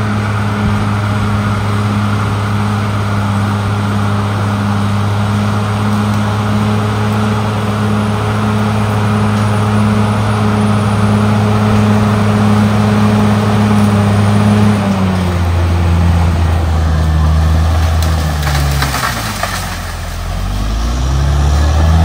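Caterpillar D6R XL crawler bulldozer's diesel engine running steadily under load while pushing soil. After about 15 s the engine note drops, sinks lower and briefly quieter near the end, then climbs again.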